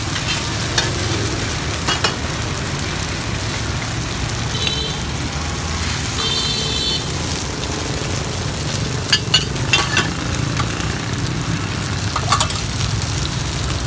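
Bột chiên (rice-flour cake) frying in oil on a street cart's pan, a steady sizzle, with a few clicks of the spatula against the pan.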